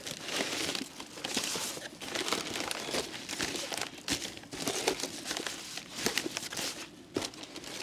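Packaging crinkling and rustling in irregular bursts as a parcel is opened and unwrapped by hand.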